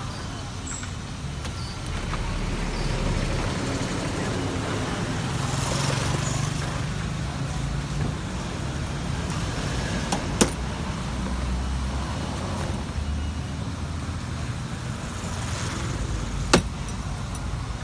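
Steady street traffic rumble with passing vehicles, and two sharp metal clicks about ten and sixteen seconds in as a wrench works on bolts under a car.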